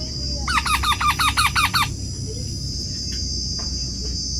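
Parrot chicks giving a rapid run of harsh squawks, about a dozen calls in just over a second, each dropping in pitch, starting about half a second in. A steady high-pitched buzz runs underneath.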